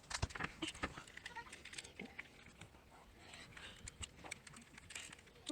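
Faint scattered clicks and light taps from a small screwdriver and the plastic shell parts of an Xbox One controller being handled as it is screwed back together, densest in the first two seconds.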